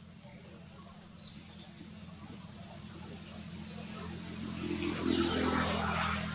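A few short, high chirps of birds calling, the loudest about a second in and three more later, over a low steady hum; a broader noise builds up over the last two seconds.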